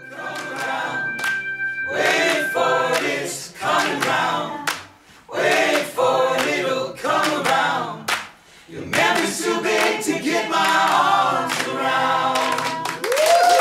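A small group of voices singing together with hand claps keeping time, then breaking into a burst of cheering near the end.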